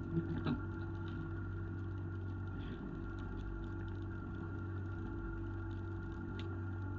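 Fishing boat's engine running steadily, an even drone with a few short knocks at the start and a brief click near the end.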